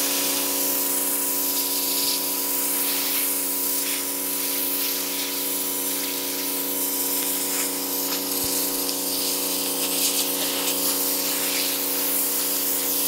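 Pressure washer jet spraying onto a yellowtail snapper, blasting the scales off the fish. A steady, loud hiss of spray runs over the pressure washer's constant hum.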